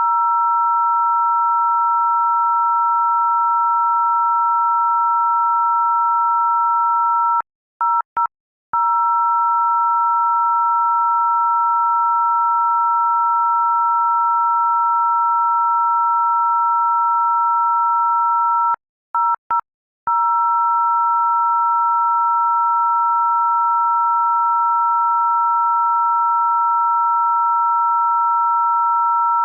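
A loud electronic tone of two steady pitches sounding together, like a phone dial tone. It breaks into a quick on-off stutter for about a second, twice: near a quarter of the way in and again about two-thirds through.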